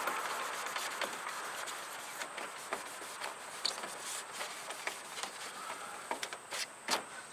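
A paper towel wiping a plastic headlight and turn-signal lens dry: faint rubbing and rustling, with scattered light clicks and a sharper tap near the end.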